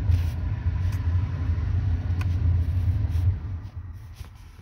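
A low, steady machine rumble that fades away about three and a half seconds in, with a few faint clicks over it.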